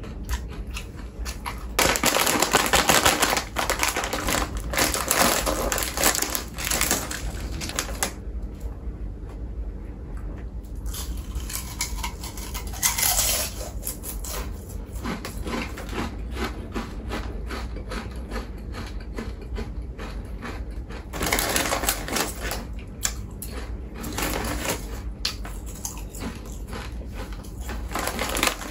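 Close-up crunching and crackling of snack food being handled and eaten. It comes in loud, dense spells from about two to eight seconds in and again around twenty-one to twenty-four seconds, with quieter crackling in between.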